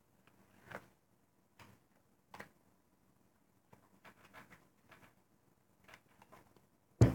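Playing cards being handled on a felt table: soft, scattered flicks and clicks as the spread deck is gathered and packets are moved between the hands. A louder single thump near the end.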